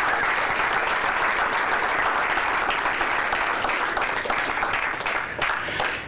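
Audience applauding, a dense patter of clapping that tapers off near the end.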